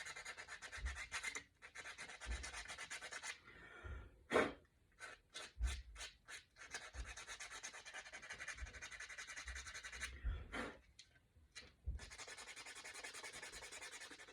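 Sandpaper rubbed by hand along the edges of a painted wooden cutout: quick back-and-forth scraping strokes in long runs. The strokes pause briefly twice, with a few light taps in between.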